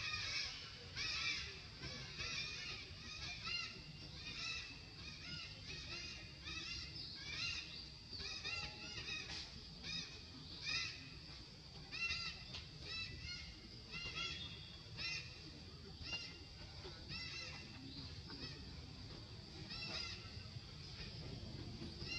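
Short, high-pitched animal calls, each rising and falling, repeated about once or twice a second throughout, over a steady low rumble.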